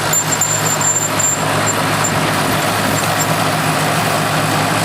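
Bulldozer engine running steadily as the crawler drives forward.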